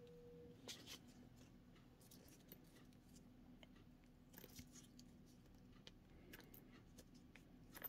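Faint rustling and scattered light clicks of packaging being pulled off a new leather wallet, very quiet overall.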